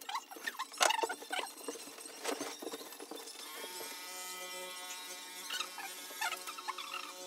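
Clothes rustling with a few knocks, then about three and a half seconds in a handheld massage gun starts running with a steady, even-pitched electric whine.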